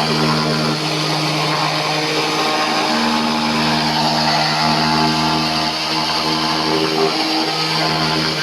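A small motor running steadily, with a hum that holds its pitch and higher tones that come and go.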